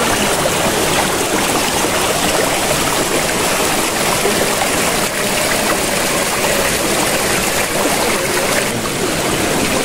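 Rushing water of a stream, a steady, even hiss.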